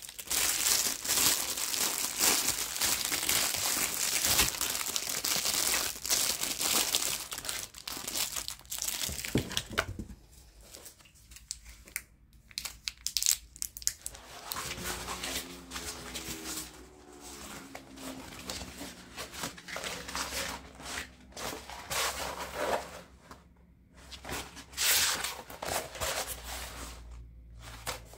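Plastic wrap and packaging crinkling and rustling as items are handled in a cardboard box, then a rolled paper print rustling as it is unrolled. The crinkling is dense and nearly continuous for about the first ten seconds, then comes in shorter, irregular bursts.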